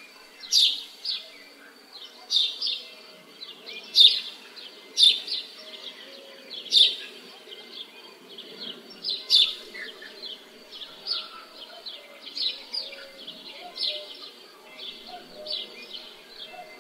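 Birds chirping: short, sharp chirps repeating about once a second, louder in the first half, over a faint low background murmur of outdoor ambience.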